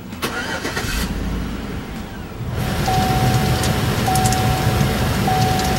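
A Chevrolet's engine being remote-started, heard from inside the cabin: it cranks and catches in the first second, then settles into running. About two and a half seconds in, the climate-control blower comes on with a steady rush of air, and a dashboard chime starts beeping about once a second.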